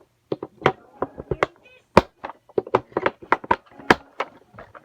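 Rapid, irregular clicks and knocks of hard plastic toys being handled and knocked together, with a brief pitched toy sound about halfway through.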